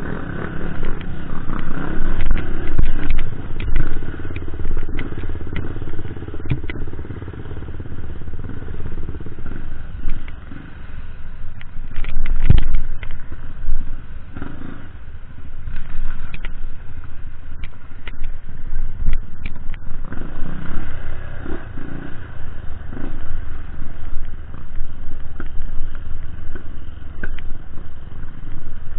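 Off-road dirt bike engines running and revving as the motorcycles ride a rough forest trail, louder for the first ten seconds or so, easing off, then building again. Sharp clacks and knocks from the bikes jolting over the ground are scattered through, the loudest about twelve seconds in.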